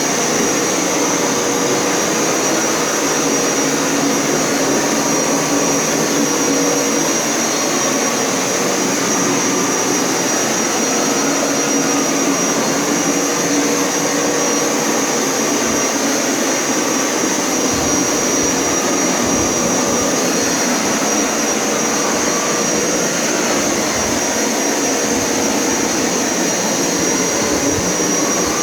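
Hoover Power Scrub Elite carpet washer running steadily on an extraction pass, its suction motor drawing water back up out of the carpet, with a steady high whine over the rush of air.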